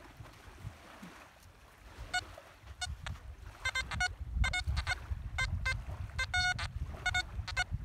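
XP ORX metal detector with an elliptical HF coil sounding its target tone: short, steady-pitched beeps starting about two seconds in, repeating as the coil is swept back and forth over a buried target, with one longer held tone a little after six seconds. The target reads 58, which the user expects to be a piece of tin foil or aluminium.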